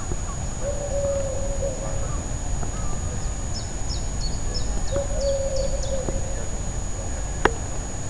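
Outdoor ambience: a steady low rumble with a few drawn-out calls from a bird or animal, about a second each, and a quick run of high bird chirps in the middle. A thin steady high whine runs underneath, and a single sharp click sounds near the end.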